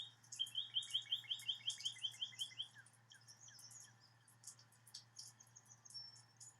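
Birds singing: one bird gives a quick trill of about a dozen repeated notes in the first few seconds, while other birds keep up short high chirps throughout.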